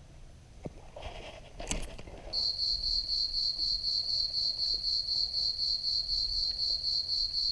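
A brief rustling burst with a couple of sharp clicks, then about two seconds in an insect starts a loud, steady, high-pitched trill that pulses several times a second.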